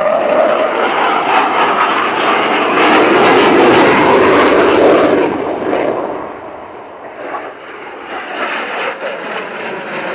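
Panavia Tornado's twin RB199 turbofan engines in afterburner: a loud jet rush with a crackling edge, loudest a few seconds in, then dying down after about six seconds before swelling slightly again near the end.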